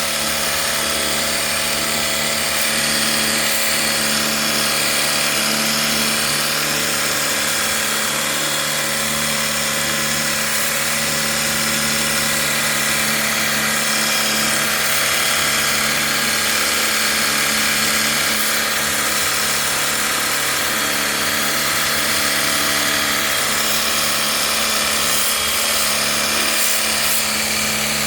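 A small electric pressure-washer pump runs steadily, with the dense hiss of a water jet spraying the dirty split air conditioner during its wash.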